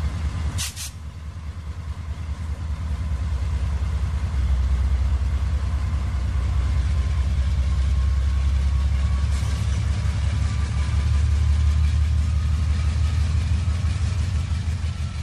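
HO-scale model freight cars rolling past on the track: a steady low rumble of wheels on rail, with one sharp click about half a second in.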